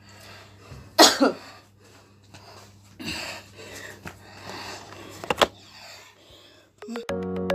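A person's breathy, wordless vocal sounds in a small room, the loudest a short cry about a second in that falls steeply in pitch. Two sharp clicks come a little past five seconds, and music starts near the end.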